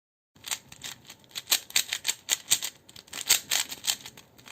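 Plastic puzzle cube being turned fast, a rapid irregular run of sharp clicks and rattles as its layers snap round, starting abruptly about half a second in.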